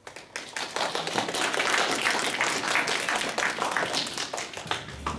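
Audience applauding: the clapping builds over the first second, holds, then dies away near the end.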